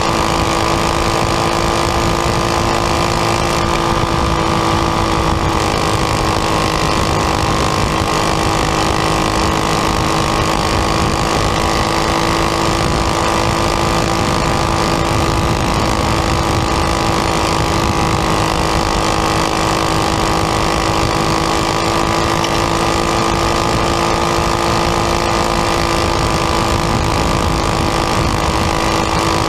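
Champ kart engine running at constant high revs, recorded from a camera mounted on the kart: a loud, even drone whose pitch holds steady, with rushing noise underneath.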